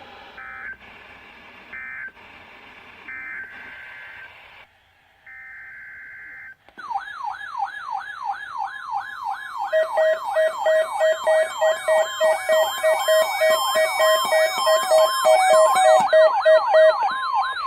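Emergency Alert System data bursts: short screechy digital tone bursts in the first few seconds. About seven seconds in, an electronic siren alert tone starts, sweeping up and down about three times a second. A few seconds later, rapid steady beeping joins it. This is the attention signal of an EAS required weekly test.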